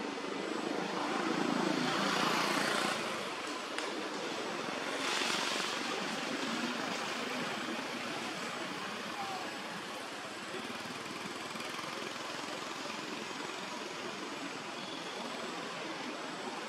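Steady outdoor background noise, swelling louder twice in the first six seconds, then settling into an even hiss.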